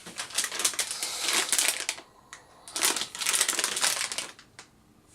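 Plastic packaging crinkling as it is handled, in two spells of about two seconds and a second and a half with a short pause between.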